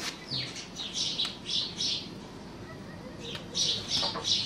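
A horse's hoof being cleaned out by hand, with short, high scraping strokes in quick runs: about five in the first two seconds, then three more near the end.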